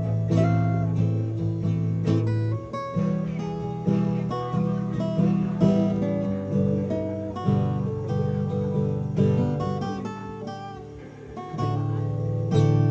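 An acoustic guitar being played, trying out the new instrument's sound: single picked notes over bass notes and chords. It grows quieter a little before the last two seconds, then comes back in full.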